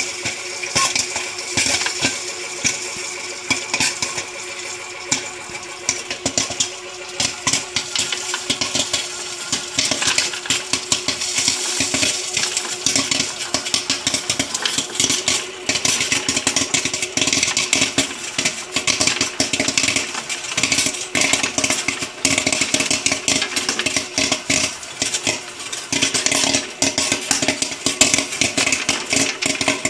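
Great Northern Little Bambino kettle popcorn machine popping corn in hot coconut oil: scattered pops at first, thickening into a dense, continuous crackle of kernels bursting from about seven seconds in, over the machine's steady hum.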